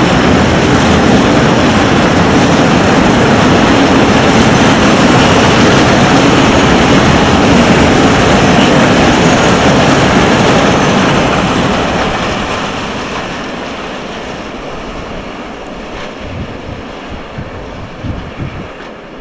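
Freight train of flat wagons loaded with steel coils rolling past at speed, a loud steady noise of wheels running on the rails. About eleven seconds in it starts to fade as the train draws away, and near the end wind gusts buffet the microphone.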